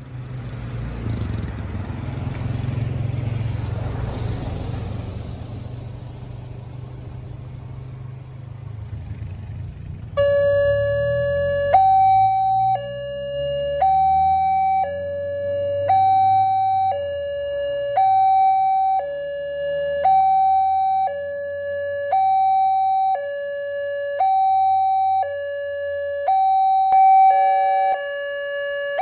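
A road vehicle's engine rumbles and fades. About ten seconds in, a railway level-crossing alarm starts sounding from the speaker on the crossing post: a loud electronic two-tone signal, a lower and a higher tone alternating about once a second, warning that a train is approaching.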